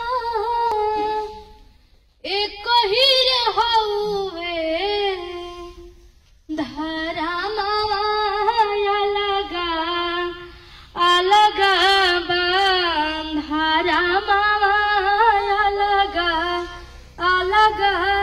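A girl singing a Bhojpuri song solo, with no accompaniment, in four long drawn-out phrases separated by short pauses.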